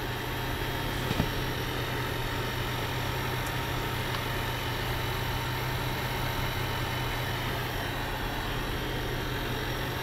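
Steady mechanical hum inside a parked car: the car's engine idling together with a small portable air conditioner running off a 4000 W DC power inverter. A light click about a second in.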